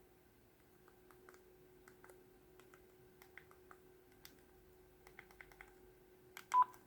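Light, irregular key clicks or taps over a faint steady hum, ending in a quick cluster with one louder click and a short beep.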